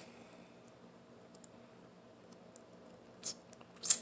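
Short wet mouth clicks and lip smacks over a faint steady room hum: a couple of small ones, then the loudest near the end as a fingertip goes to the lips.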